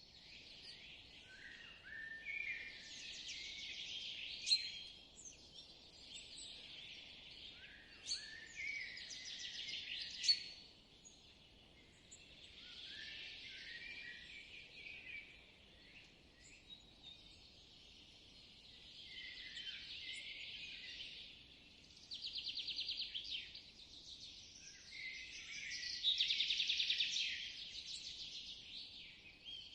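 Spring forest birdsong: several birds singing over one another. A few sharp high notes ring out in the first third, and two fast rattling trills come in the last third, over a faint background hiss.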